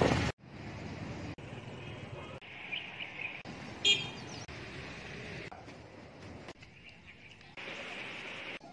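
A string of short cuts of everyday background sound, mostly street traffic, each lasting about a second. A short vehicle horn toot about four seconds in is the loudest sound.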